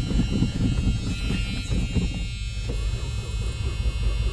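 Chrysler slant-six engine turning over on its starter during a cold start, a steady rhythmic low pulsing with a buzzing whine over it.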